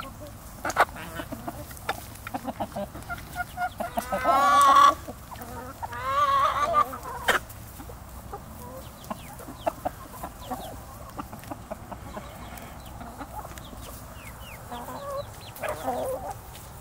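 A flock of hens clucking while they peck food from a small saucepan, with two loud drawn-out wavering calls about four and six seconds in. Scattered sharp taps throughout, one louder near seven seconds.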